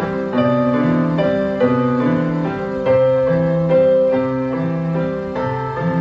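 Background piano music, with notes changing every half second or so.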